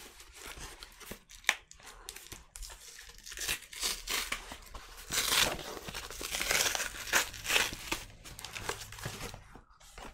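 A cardboard shipping package being cut open with scissors and torn apart: irregular tearing and crinkling of packaging, loudest about five to seven and a half seconds in, with a few sharp clicks.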